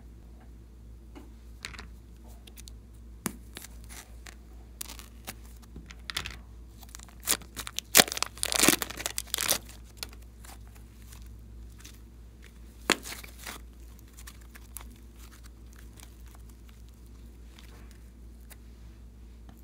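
Plastic piping bags and slime being handled: scattered crinkling and crackling, thickest in a loud burst about eight seconds in, with one more sharp crackle a few seconds later, over a low electrical hum.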